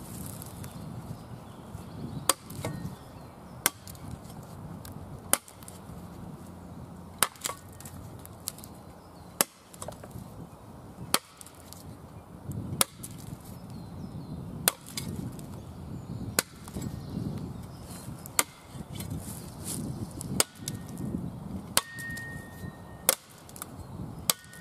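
Cold Steel Special Forces shovel's steel blade chopping into a standing sapling: a sharp chop about every two seconds, some fourteen strikes in all.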